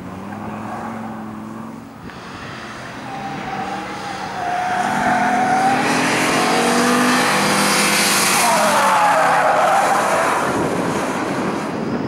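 Audi 90 quattro B2's five-cylinder engine revving up and down as the car slides sideways through a bend on wet tarmac, with tyre skidding noise. It gets louder about halfway through as the car passes closest, then eases off near the end.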